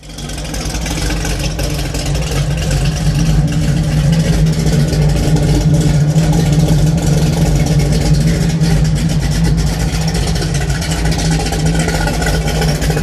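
A vehicle engine running loudly and steadily, holding an even pitch.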